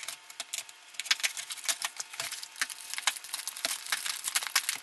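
A dull-bladed utility cutter slicing through clear packing tape along a cardboard box's seam: an irregular run of small crackling clicks and scrapes.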